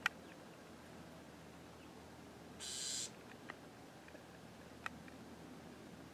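Bewick's wren giving one short, harsh buzz call about half a second long, near the middle. A sharp click sounds at the very start, and a few faint ticks follow the buzz.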